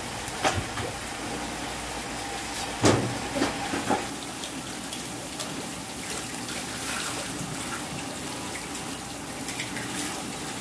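Pot of oysters, scallops and clams boiling hard over an open flame: a steady bubbling hiss of boiling water and steam, with a few sharp clicks and knocks in the first four seconds.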